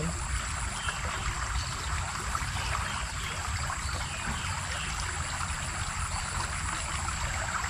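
A small river flowing: a steady, unbroken rush of water.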